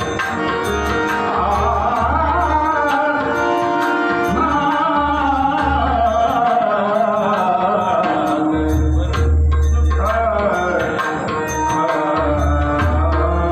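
A man singing a bhajan in a powerful voice, accompanied on harmonium, with pakhavaj and tabla keeping the rhythm. The singer's wavering, ornamented melody rides over the harmonium's held notes and deep drum strokes.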